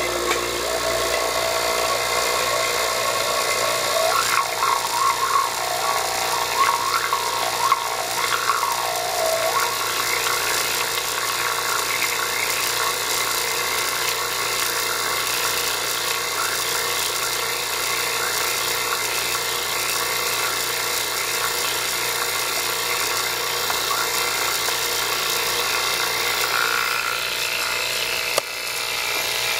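Steady high-pitched whirring hiss from a homemade high-voltage discharge tube rig in operation, with a wavering whine between about four and ten seconds in.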